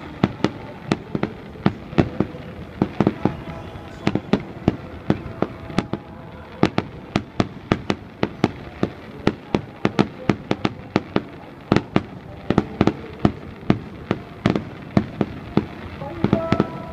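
Fireworks display: aerial shells bursting in a rapid, irregular series of sharp bangs, several a second.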